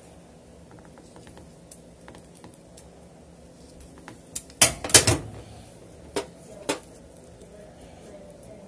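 Scattered sharp clicks and knocks of small hard objects being handled and set down on a table. The loudest is a quick cluster of knocks about five seconds in, with two single knocks just after.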